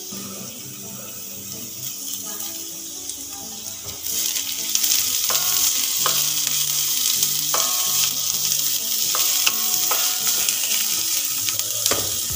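Chopped onion and green chilli sizzling in hot oil in a metal wok, stirred with a wooden spatula that knocks and scrapes against the pan several times. The sizzle gets louder about four seconds in.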